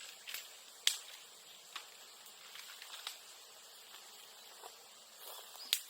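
A small brush fire of twigs and bamboo grass crackling: a handful of sharp, separate snaps over a faint hiss, with the loudest a little under a second in and just before the end.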